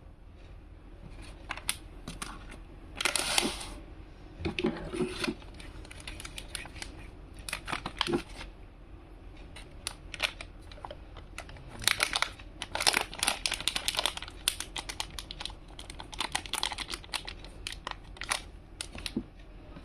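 Packaging being handled and opened: plastic crinkling, rustling and tearing in short spells, with many small clicks and taps.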